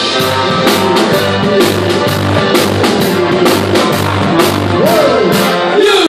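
Live rock band playing loudly: electric bass pumping repeated low notes under a drum kit that keeps a steady beat, with cymbal strikes about two or three times a second.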